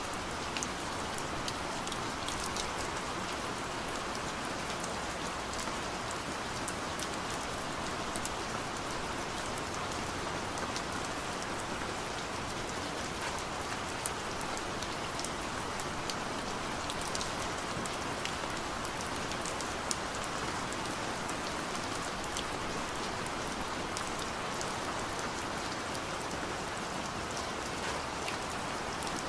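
Steady rain falling, a continuous even hiss with many small individual drop ticks scattered through it.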